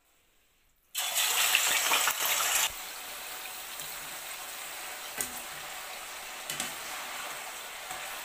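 Raw boneless chicken pieces dropped into hot oil: a loud burst of sizzling about a second in that settles after under two seconds into a steady frying sizzle, with a few sharp clicks.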